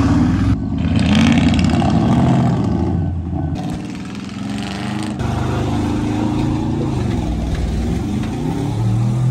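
Squatted pickup truck's engine revving up and down as it is driven hard through muddy standing water, with the spray splashing off the tyres.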